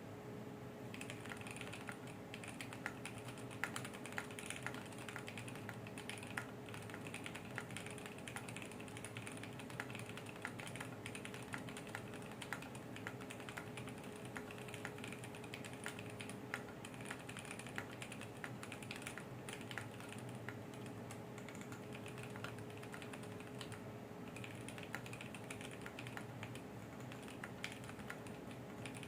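Custom mechanical keyboard (Kbdfans D84 gasket-mount aluminum case, Krytox-lubed Momoka Frog switches, PBT keycaps) being typed on continuously at a steady pace, keystroke after keystroke. A faint steady hum runs underneath.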